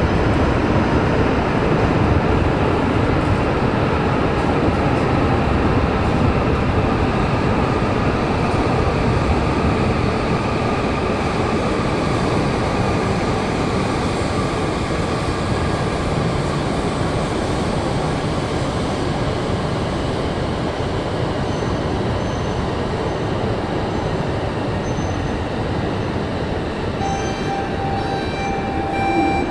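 E5 series Shinkansen moving along an underground platform, a steady rumble of wheels and traction motors that eases off gradually. A few short high tones sound near the end.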